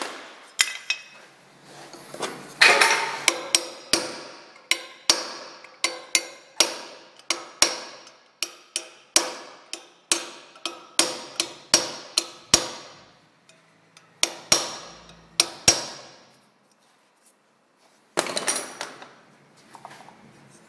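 Hammer blows on a copper punch, knocking the crash-bent steel saddlebag mount of a BMW R1100S back into shape against copper vise jaws. The sharp metallic taps come about two a second and stop about three-quarters of the way through. A short burst of noise follows near the end.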